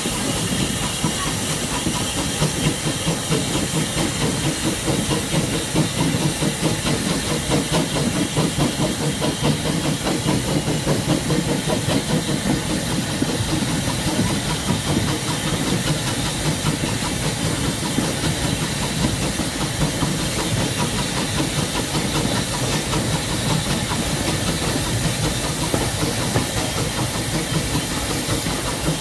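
Steam trains running side by side, one of them the 1863 Furness Railway No. 20: a steady hiss of steam over the rapid clatter of wheels on the rails, heard from aboard one of the trains.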